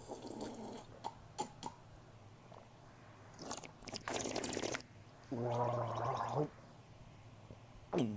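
A man drinking water: sips and swallows with a few wet clicks, then a little past halfway about a second of gargling water in the throat.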